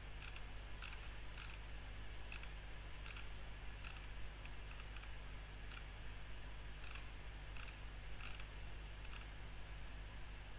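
Light computer mouse clicks, about fourteen at an irregular pace of one or two a second, over a faint steady hum and hiss.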